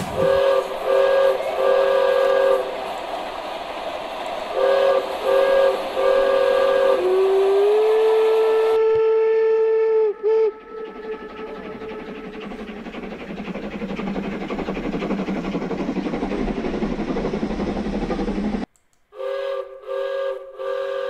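Steam locomotive whistle sounding in groups of short blasts and one long held blast. Then the rolling noise of a train grows steadily louder. Near the end the sound cuts out for a moment, and more short whistle blasts follow.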